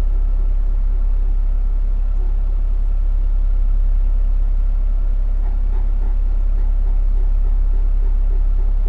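Heat pump running: a deep steady hum with a thin steady whine over it, and a fast rhythmic tapping of about five taps a second.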